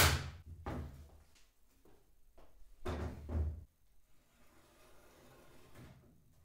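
Wooden drawer and workbench being handled during drawer fitting: a sharp knock at the start, a couple of lighter clunks, and a heavier low bump about three seconds in, then faint handling noise.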